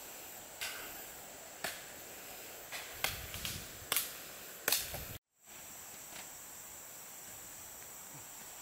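Rainforest insects keep up a steady, high, hissing chorus. Half a dozen short sharp clicks come over it in the first five seconds, and the sound cuts out briefly about five seconds in.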